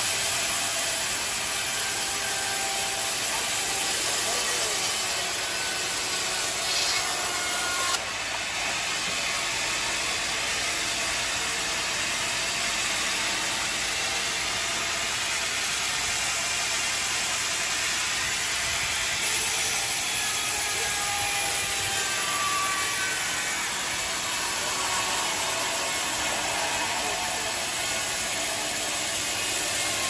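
Large band sawmill running and cutting lengthwise through a teak log, a steady, even sawing noise from the blade and machine.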